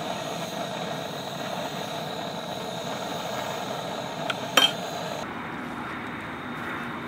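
Steady rushing background noise with two light clinks about four and a half seconds in.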